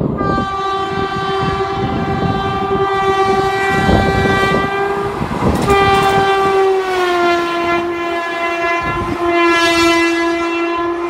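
Indian Railways electric locomotive horn sounding in two long blasts, the second sliding down in pitch partway through, over the rumble and clatter of the train's wheels on the track.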